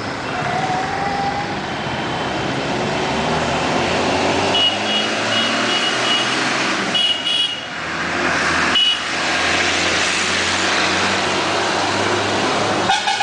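Road traffic on a busy town street: a steady mix of engines and passing vehicles, with a run of short, high-pitched beeps around the middle.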